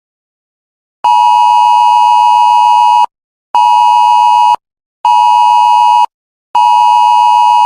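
Electronic emergency-broadcast alert tone: a loud, steady pitch near 1 kHz beeping in a long–short–short–long pattern. It starts about a second in, with a two-second beep, two one-second beeps and a last long beep still sounding at the end.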